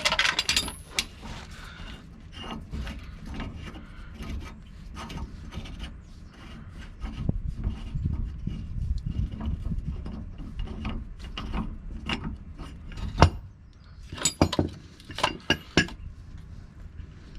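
A socket ratchet clicking as it turns the screw of a C-press to push the bearing cups out of a U-joint, with metal-on-metal scraping. There is one sharp snap about thirteen seconds in, then a few more sharp knocks.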